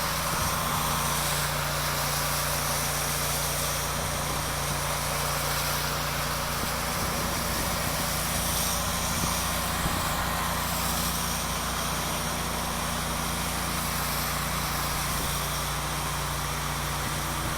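Pressure-washing rig's engine running at a steady speed, an even low hum with a steady hiss over it.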